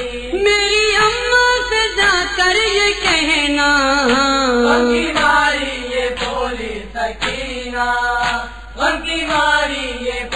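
A male voice reciting an Urdu noha, a Shia lament for Muharram, in a slow, melismatic chant line with gliding, drawn-out notes. A soft thud recurs about once a second, keeping a slow beat.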